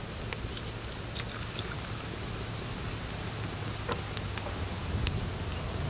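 Water heating in a large metal pan, starting to steam: a steady hiss with a few scattered faint pops and crackles.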